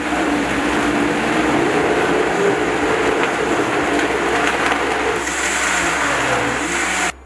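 Countertop blender running at high speed, pulverising a jar packed with leafy greens, beet, apple, ginger and pineapple in water into a smoothie. It runs steadily and cuts off abruptly near the end.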